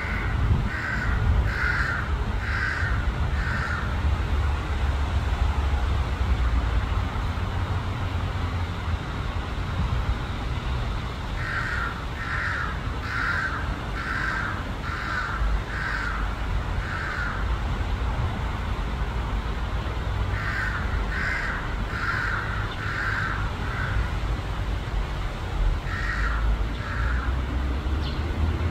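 A crow cawing in runs of short, evenly spaced caws: about five at the start, six or seven around the middle, five or six later, and two near the end, over a steady low rumble.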